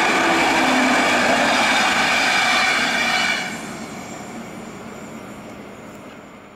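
Passenger coaches of an express train passing at full speed, a dense rolling noise of wheels on rail with some high ringing tones. About three seconds in it drops sharply as the last coach goes by, then fades into the distance.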